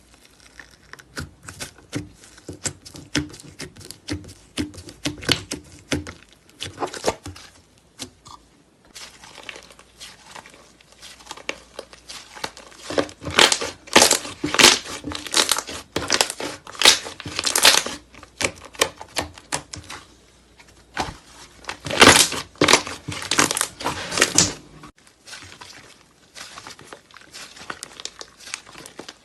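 Slime being squeezed and worked by hand, giving rapid crackling and popping clicks, loudest in two spells in the middle.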